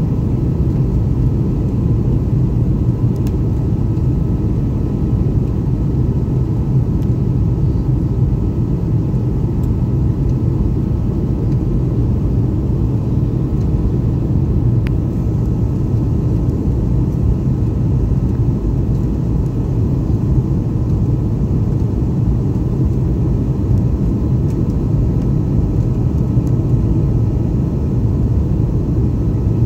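Steady cabin noise inside a jet airliner on landing approach with flaps extended: a loud, even rumble of the engines and rushing air, with a faint steady high whine above it.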